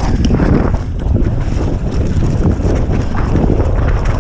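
Wind buffeting the microphone of a downhill mountain bike's camera at speed, over a steady rattle and clatter of the bike and its tyres on a rough, muddy trail.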